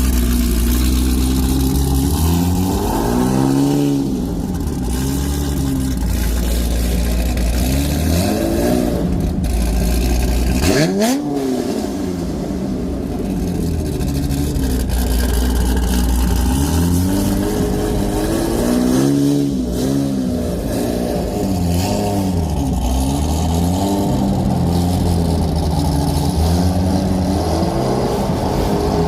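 C5 Corvette's V8 idling and being revved repeatedly with quick throttle blips, with one sharp, high rev about eleven seconds in and a run of short blips near the end.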